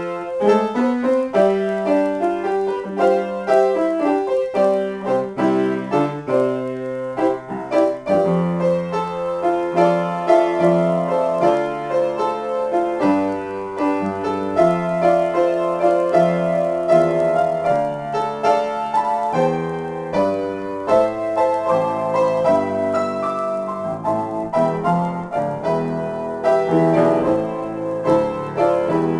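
Grand piano played solo, improvised: a continuous flow of struck notes and chords, bass notes under a middle-register melody, without a break.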